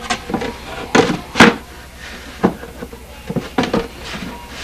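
Plywood panel knocking and bumping against the boat's wooden framing as it is shifted and pressed into place: a series of sharp wooden knocks, the loudest about a second and a half in.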